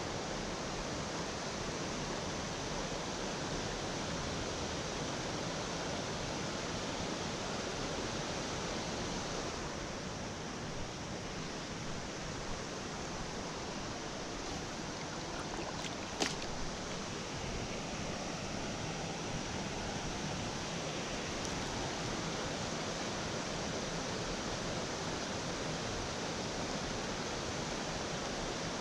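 Steady rushing noise of flowing water, with a single sharp click about sixteen seconds in.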